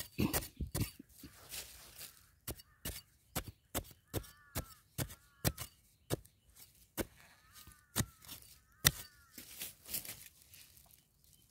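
Digging tool hacking repeatedly into dry soil, about two sharp strikes a second, with loose earth scattering.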